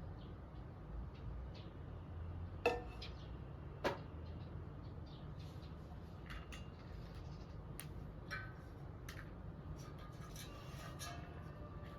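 Light clinks and clicks of kitchen utensils and dishes being handled, with two sharper knocks about three and four seconds in, over a low steady rumble.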